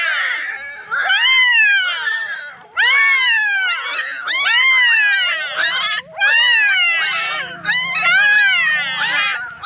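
Young puppies crying: high whines that rise and then fall in pitch, about one a second, with several voices overlapping.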